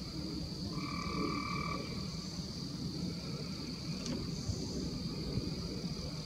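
Outdoor night ambience: a steady high-pitched insect trill over a low rumble, with one even, frog-like call about a second in that lasts about a second.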